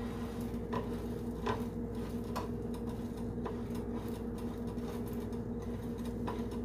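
Slotted spatula tapping and pressing a slice of bread onto eggs frying in a nonstick pan: a handful of light, sharp taps about a second apart, over a steady low hum.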